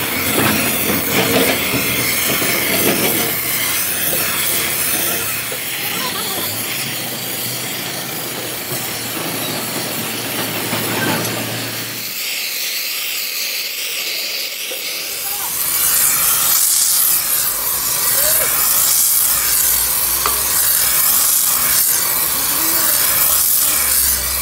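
Steady hissing noise of workshop machinery at work. It changes about twelve seconds in and grows louder and brighter from about fifteen seconds in.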